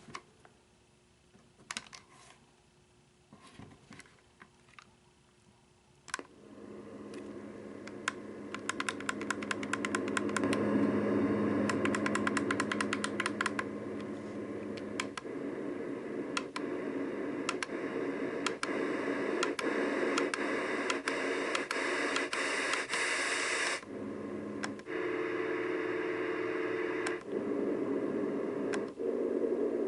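LectroFan white noise machine playing its fan and white noise sounds, a steady hiss and hum that comes on a few seconds in and gets louder. Quick runs of button clicks go with the rising level, and the sound changes suddenly several times as different sounds are selected.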